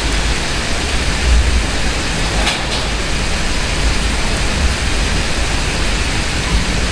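Steady hiss with a low rumble underneath: the recording's constant background noise, with no other sound standing out.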